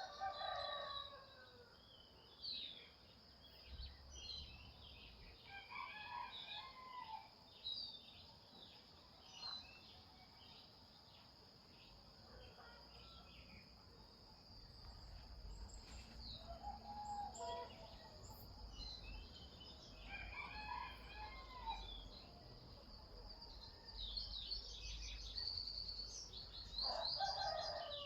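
Faint outdoor birdsong: a rooster crowing a few times, with falling calls near the start, midway and near the end, among many small birds chirping, over a steady high insect drone.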